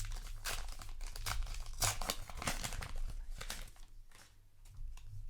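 Paper booster-pack wrapper being torn open and crinkled, a quick run of short rustles and tears that dies down after about four seconds.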